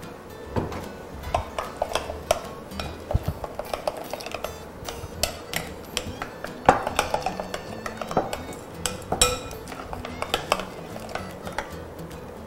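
A utensil clicking and scraping against a glass bowl in quick, irregular taps as thin frying batter is stirred, with one harder knock about halfway.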